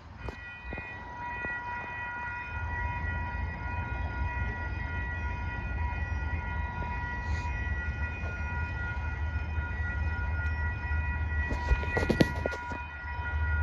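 Railroad grade-crossing warning bell ringing steadily while a train approaches with a low rumble that builds after a couple of seconds. A brief sharp clatter comes about twelve seconds in.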